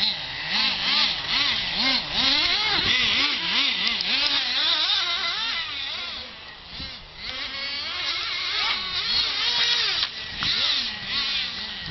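Two nitro-powered RC stadium trucks racing, their small glow-fuel engines revving up and down in a high-pitched whine that rises and falls in pitch over and over as the throttle opens and closes.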